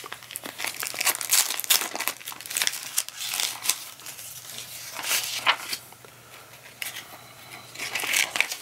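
Thin clear plastic bag crinkling and crackling in irregular bursts as a folded paper user manual is pulled out of it, then the manual's paper pages rustling as it is opened.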